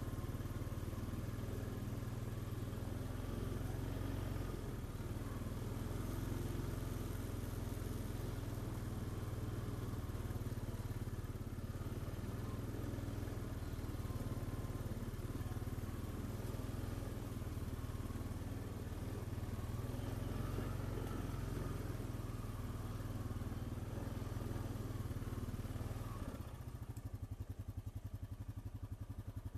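Vehicle engine running steadily, easing off near the end.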